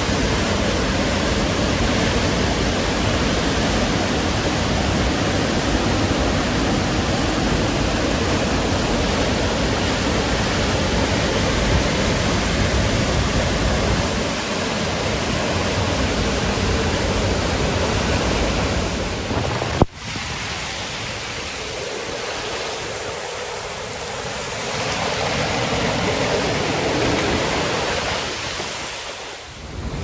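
Tall waterfall plunging onto rocks and a pool close by: a steady, full rush of falling water and spray. A short click just before two-thirds of the way through, after which the rush is a little quieter and thinner in the low end.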